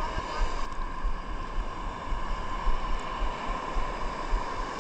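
Wind buffeting the microphone in uneven low gusts over water noise, with a faint steady hum running underneath.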